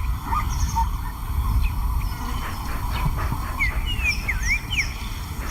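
A few short, gliding bird whistles from about three and a half seconds in, over a steady low rumble.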